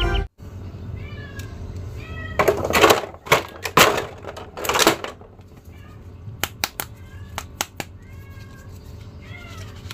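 A cat meowing several times, with loud crinkling and rattling of a clear plastic blister tray of action figures being handled about two and a half to five seconds in, then a few sharp plastic clicks.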